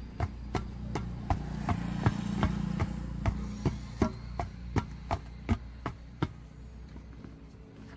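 Hammer blows struck in a quick, even series, about three a second, stopping a little after six seconds in, over a steady low hum.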